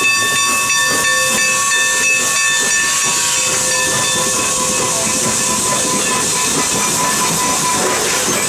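Milwaukee Road 261, an S3-class 4-8-4 steam locomotive, hissing steam as it passes. A steady ringing tone sits in the hiss and fades out about halfway through.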